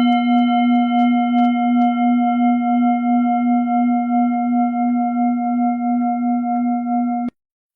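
A steady, pitched meditation drone with ringing overtones, held at an even level without fading. It cuts off suddenly about seven seconds in and starts again half a second later.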